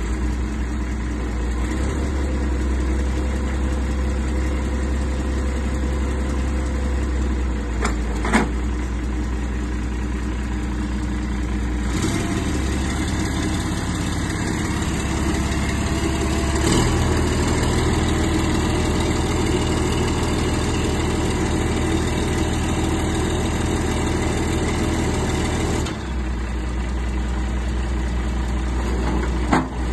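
Engine idling steadily under the Unic 340K truck crane work. Its low drone shifts several times, about 12, 17 and 26 seconds in, and a few sharp clicks sound over it.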